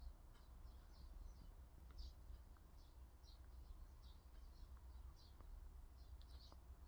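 Faint, high chirping, short chirps about one or two a second at irregular spacing, over a low steady rumble.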